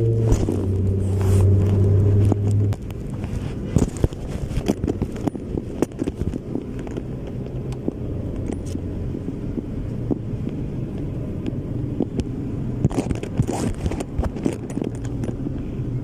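Yamaha R25's parallel-twin engine running with a strong steady note that drops sharply in level about three seconds in, then carries on at a quieter steady note, with scattered clicks and crackles throughout.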